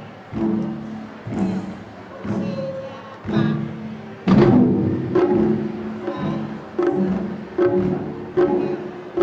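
Group taiko drumming in time with a recorded song: strong drum strokes about once a second under the song's melody, with one louder hit about four seconds in.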